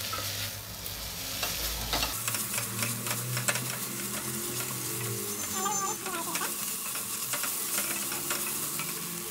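Sliced onions, garlic, green chilli, herbs and ginger paste sizzling in hot oil in a stainless steel pot as they are stirred. A spatula gives frequent small scrapes and clicks against the steel.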